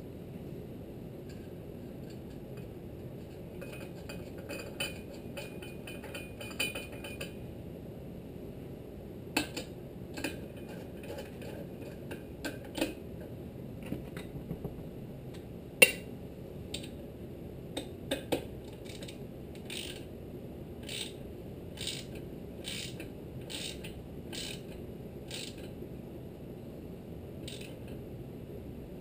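Socket ratchet clicking as the flywheel nut is run down onto the crankshaft of a Tecumseh HSK70 small engine. A fast run of pawl clicks lasts several seconds, then single clicks come about once a second with each swing, and a few louder metal clinks fall between them.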